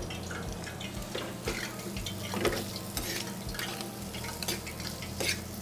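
Chorizo frying in hot oil in a stainless steel pan while a long-handled metal spoon stirs it, with irregular clicks and scrapes of the spoon against the pan over the sizzle.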